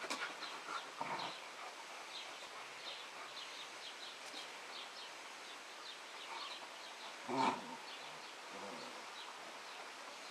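Landseer and Pyrenean Mountain Dog puppies play-wrestling, with short dog vocal sounds and one louder one about three-quarters of the way through. Faint short high chirps run through the background.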